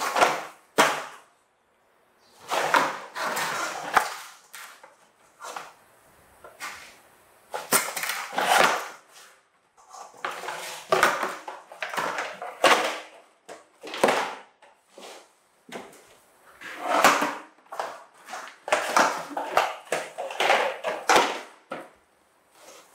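Hard plastic toy dump truck being knocked over, pushed and dragged across a wooden floor: irregular bouts of scraping, rattling and rolling wheels, with sharp plastic knocks.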